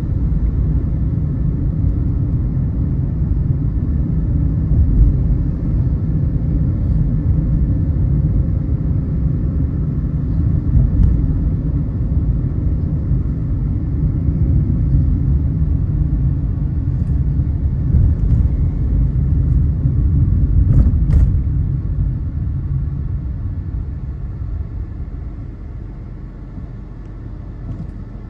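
Car driving on a road: a steady low rumble of engine and tyre noise, growing quieter over the last several seconds.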